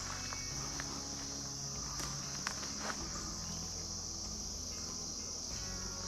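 Insect chorus in the woods: a steady, unbroken high-pitched drone, with a few faint light clicks in the leaves.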